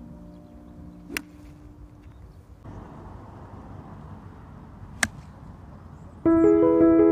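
Two sharp clicks of hickory golf clubs striking the ball, about four seconds apart. Piano music comes in near the end.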